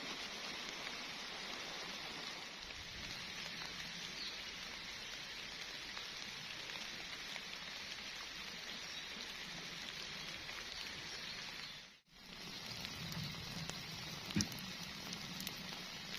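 Steady rain falling, an even hiss with a patter of drops. It cuts out for an instant about twelve seconds in, then resumes, and there is one sharp tap a couple of seconds later.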